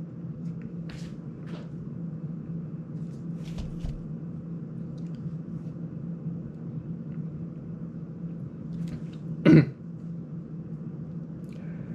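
Faint plastic clicks and light knocks from a small FPV drone being handled and set down on a workbench, over a steady low hum. About nine and a half seconds in comes one short vocal sound, like a throat-clear.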